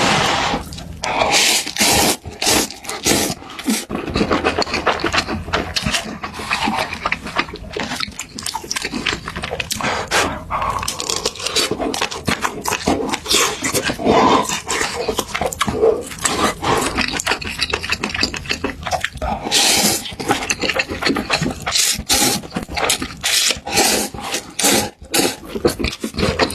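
Close-miked eating sounds: wet chewing and lip-smacking on mouthfuls of food, a dense, irregular run of short clicks and smacks.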